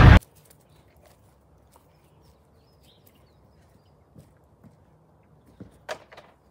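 A loud blast cuts off abruptly a fraction of a second in. Then comes faint outdoor background, with a few soft taps and scuffs near the end.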